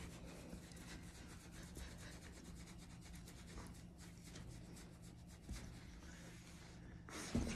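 Faint rubbing and scratching of a hand on a Siberian husky's thick fur, over a faint steady low hum.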